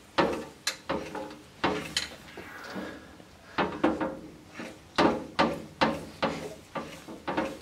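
Repeated sharp metallic knocks with a short ring, two or three a second with a pause near the middle, from work on a dented two-stroke expansion chamber clamped in a straightening jig under water pressure.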